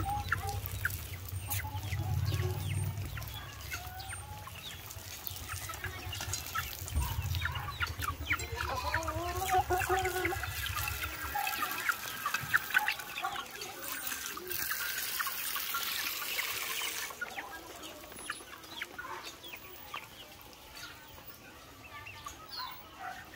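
Backyard chickens clucking, with scattered sharp clicks throughout. A low rumble runs through the first half and stops about eleven seconds in, and a steady hiss comes in for a couple of seconds past the middle.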